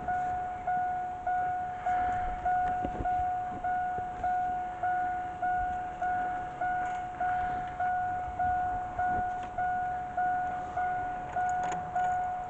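Vehicle warning chime of a 2004 Chevrolet Blazer dinging over and over, about one and a half dings a second, each a single clear tone that fades, stopping near the end. Faint clicks of work under the truck sound beneath it.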